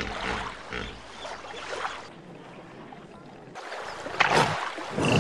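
Water splashing and sloshing, with a loud sudden splash a little after four seconds in.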